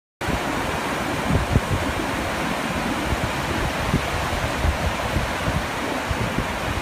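Small waves washing over a sandy shore: a steady hiss of moving water that starts suddenly, with low rumbling wind buffets on the microphone.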